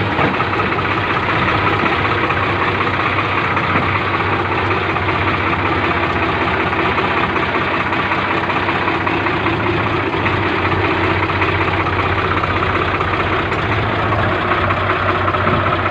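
Swaraj 834 XM tractor's three-cylinder diesel engine idling steadily.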